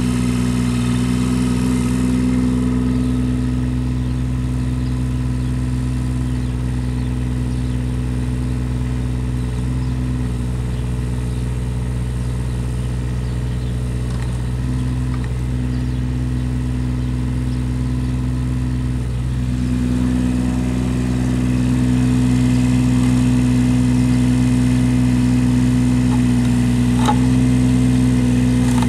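Kubota KX41 mini excavator's diesel engine running steadily while the machine swings and works its boom. The engine grows a little louder about two-thirds of the way through.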